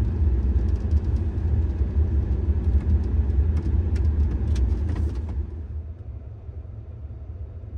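Pickup truck driving, a steady low engine and road rumble with a few light clicks or rattles partway through; it turns quieter about five seconds in.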